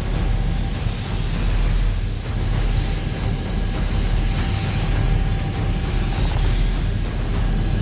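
Steady, loud hissing spray noise that starts suddenly and runs on without a break.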